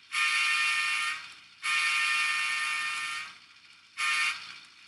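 LokSound 5 sound decoder playing a diesel locomotive air horn sample: several tones sounding together in two long blasts, a short one, and the start of a fourth, the pattern sounded at grade crossings. This is an alternate horn version picked from the sound package by changing a decoder setting.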